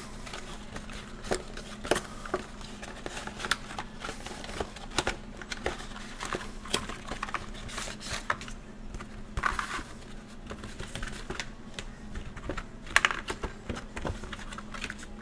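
Cardboard game box being opened and its contents handled: irregular clicks, taps and rustles of card, paper and plastic wrapping.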